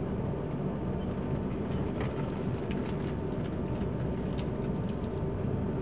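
Train running at speed, heard from inside the carriage: a steady rumble with scattered faint ticks and creaks.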